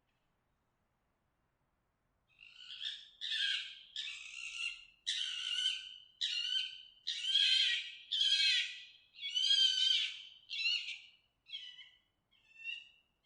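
Fox mating calls: a rapid series of about a dozen short calls starting about two seconds in, growing shorter and fainter near the end.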